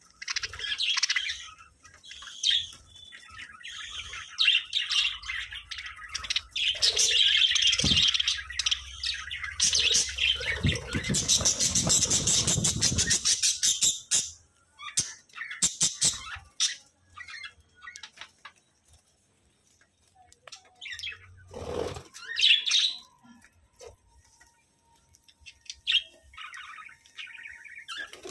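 A flock of budgerigars chirping and chattering in short, busy calls, with a loud dense flurry of sound about ten to fourteen seconds in and a quieter lull a little later.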